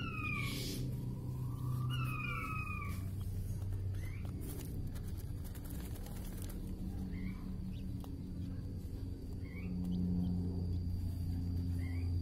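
King quail calling: a quick series of falling whistled notes twice in the first three seconds, then only a few short soft chirps, over a steady low hum.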